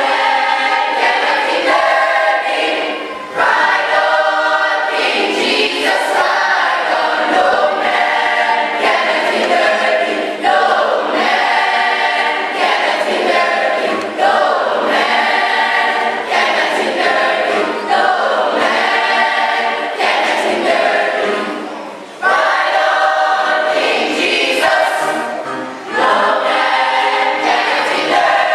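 Choir singing, in phrases a few seconds long with short breaks between them.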